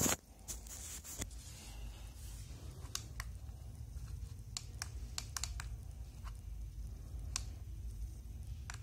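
Plastic bubble-wrap packaging rustles loudly for about a second at the start. A low, steady handling rumble follows, with scattered sharp clicks.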